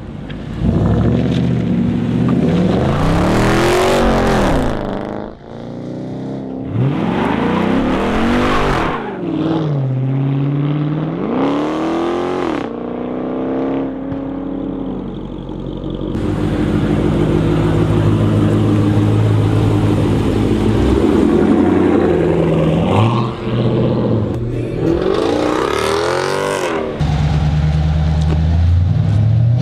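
Mopar V8 muscle cars, a Dodge Charger among them, revving hard and accelerating away, in several rising-then-falling rev sweeps. In the second half an engine runs more steadily, with one more hard rev near the end.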